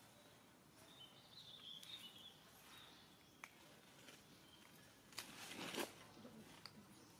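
Near-silent outdoor background with a faint, high, wavering chirp about one and a half seconds in and a short scratchy burst of noise a little after five seconds.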